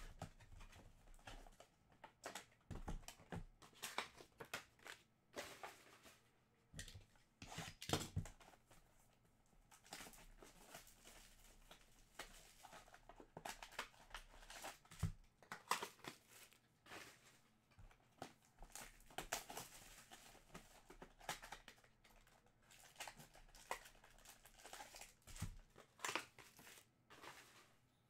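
Faint, irregular crinkling and tearing of trading card pack wrappers and packaging, with cards being handled.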